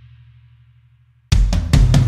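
Background music: one track fades out to near quiet, then about a second in a new track starts abruptly with loud drum hits.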